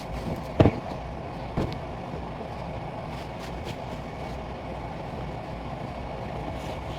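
Washing machine running with a steady low noise; two sharp knocks come in the first two seconds.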